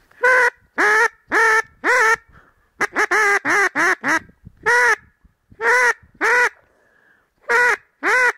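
Mallard-type duck quacks in a loud series: four evenly spaced quacks, then a quick run of five or six, then a few more in pairs. Each quack rises and falls in pitch.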